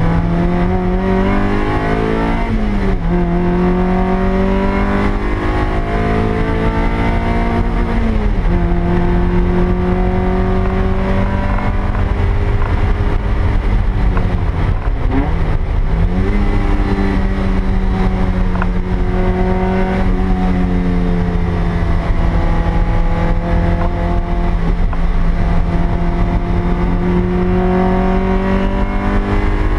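Stock 1ZZ-FE 1.8-litre four-cylinder engine of a 2000 Toyota MR2 Spyder heard from inside the cabin under hard track driving: the engine note climbs steadily, drops sharply a few times (about 3, 8 and 15 seconds in) and climbs again, over steady road and wind noise.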